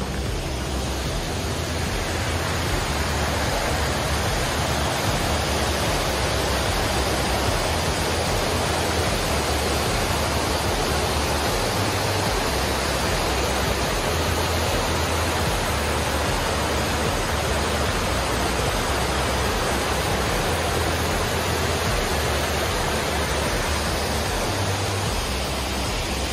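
Steady, even rushing noise that stays unchanged throughout.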